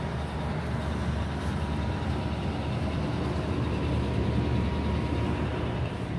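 Steady low mechanical rumble with a faint steady hum above it, swelling slightly past the middle.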